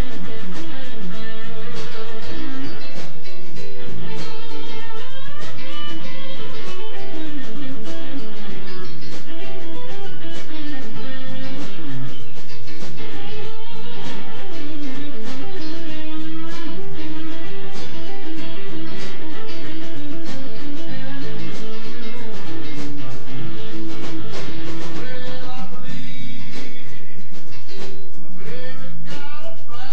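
Live blues band playing, with a Telecaster electric guitar taking lead lines full of bent, sliding notes over bass and drums.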